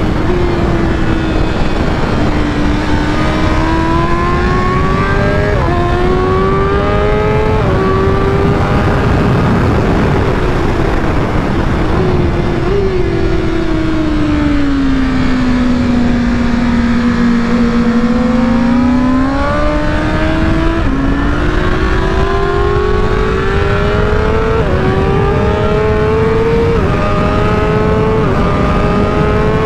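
BMW M 1000 RR's inline-four engine at full throttle on track. The revs climb through several quick upshifts, fall away as the bike slows about halfway through, then climb through upshifts again, over heavy wind rush.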